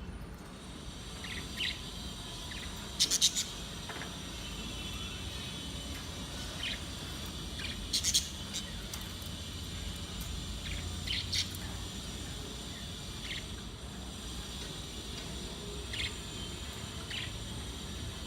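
Budgerigars in a colony cage chirping and chattering steadily, with short sharp chirps breaking through now and then, the loudest around three and eight seconds in.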